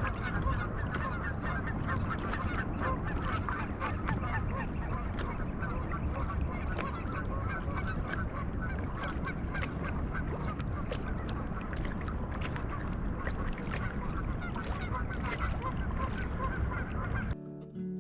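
A large flock of geese honking continuously, many overlapping calls, over a steady low rumble. The honking cuts off abruptly near the end as acoustic guitar music comes in.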